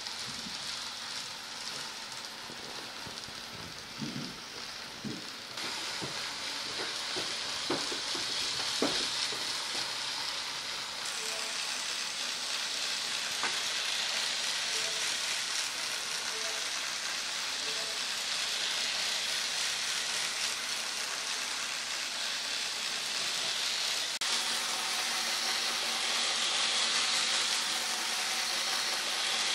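Model 500 Series Shinkansen train running on a model railway track: a steady hiss of wheels and motor, with a few clicks between about four and nine seconds in.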